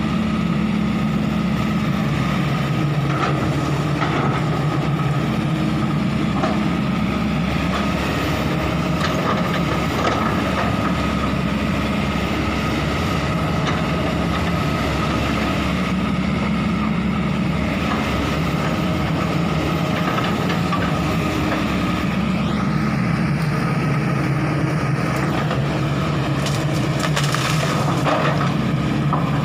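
Kobelco SK200 excavator's diesel engine running steadily, its note dropping and rising several times.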